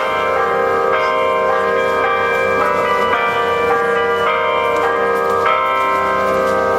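Bells struck one after another, about two strikes a second, each note ringing on under the next.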